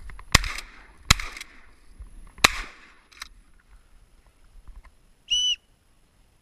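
Three shotgun shots, irregularly spaced over about two seconds, are the loudest sounds. A short high whistle follows near the end.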